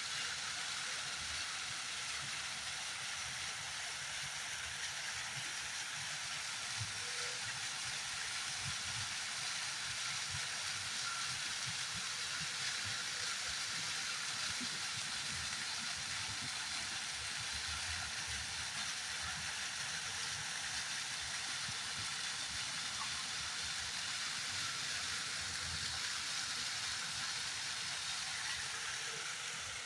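A small fountain's water spraying and splashing in a steady hiss.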